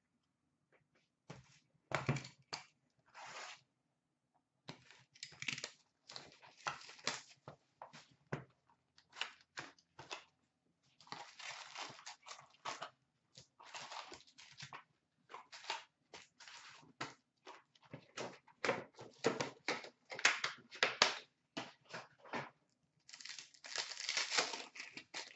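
A cardboard trading-card hobby box being torn open along its tear strip, then foil-wrapped card packs rustling and crinkling as they are handled. It comes as irregular papery crackles, densest in spells a little after the start, in the middle, and toward the end.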